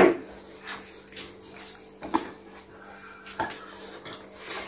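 Eating sounds at a table: scattered small clicks and smacks of chewing and handling food, with one sharper knock at the start.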